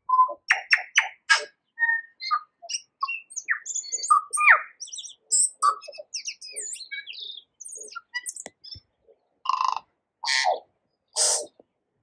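Tui singing a rapid, varied song of clicks, whistled notes and quick pitch glides, ending with three harsh, raspy notes about a second apart.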